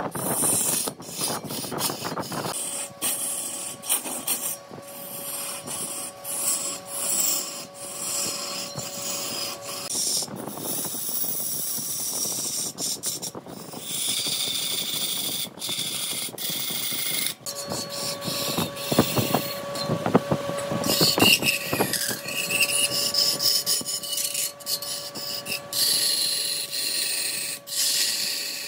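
Wood lathe running with a steady motor whine while a tool or abrasive hisses and scrapes against the spinning wood. The whine drops out for several seconds in the middle, and the sound breaks off abruptly several times.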